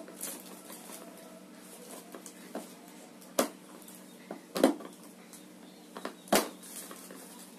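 Handling noise from a microfibre mop head being worked onto a spin mop's plastic head plate: soft rustling with scattered plastic clicks and knocks, three sharper ones from the middle to near the end, over a faint steady hum.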